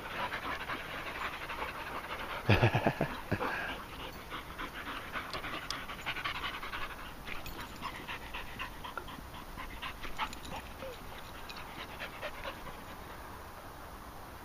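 Dogs panting close by in a quick, even rhythm, with one short louder noise about two and a half seconds in.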